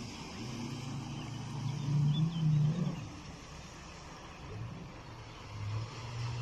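Yamaha outboard motor on a small rigid inflatable boat running at speed across the water, a steady engine drone that swells about two seconds in, fades after three seconds and comes up again near the end.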